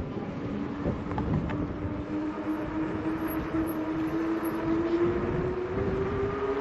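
Electric fat bike's hub motor whining, its pitch rising steadily as the bike picks up speed, over rough tyre and wind noise.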